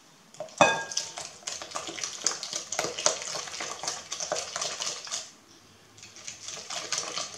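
Small metal coil whisk beating egg mixture in a glass bowl: quick clicking and scraping strokes against the glass, with one ringing knock on the bowl about half a second in. The strokes pause briefly near the end, then start again.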